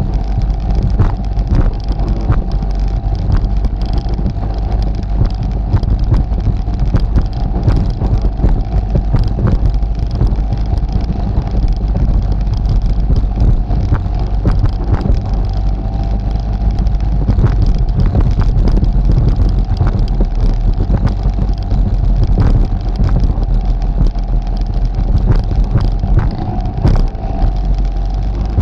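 ATV engine running steadily while riding, a constant engine tone over a heavy low rumble, with frequent short knocks from the ride.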